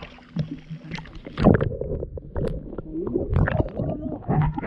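Muffled gurgling and sloshing of seawater around a camera held under the surface beside a boat hull, with irregular sharp knocks.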